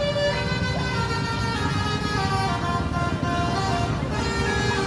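Bus basuri (telolet) musical air horn playing a melody of held notes that step from pitch to pitch, over a steady low engine rumble.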